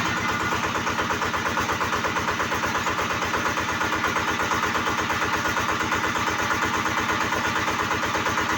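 Yanmar TF-series single-cylinder diesel engine running steadily just after starting, with an even beat of about ten firing pulses a second.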